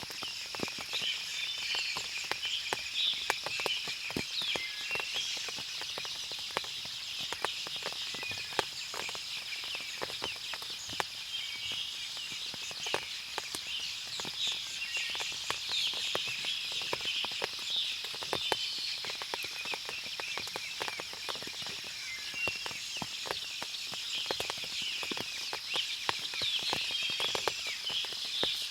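Forest ambience after rain: birds chirping over a steady high insect drone, with frequent small ticks of water dripping throughout.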